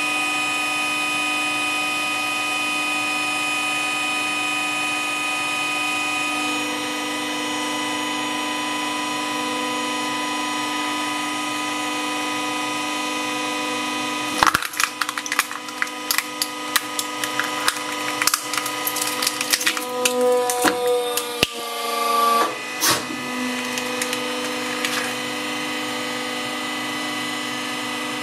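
Hydraulic press's pump motor running with a steady hum; about halfway through, an iPhone being crushed under the ram gives several seconds of sharp cracks and crunches of breaking glass and metal, the motor's tone wavering under the load, before the steady hum settles again.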